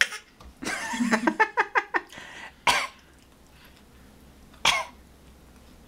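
A baby's put-on 'sickly' cough: a quick run of short throaty coughs about a second in, then single coughs about three and five seconds in.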